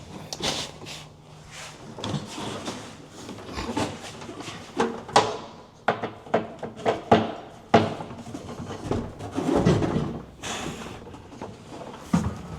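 Irregular knocks, bumps and rattles as an over-the-range microwave is handled and fitted under a kitchen cabinet, with a louder scraping, shuffling stretch about ten seconds in.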